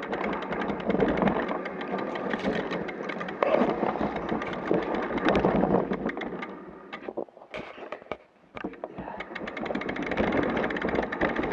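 Mountain bike rattling and clattering as it rolls down a rocky dirt trail, with many sharp knocks. The noise dies down briefly about two-thirds of the way through, then picks up again.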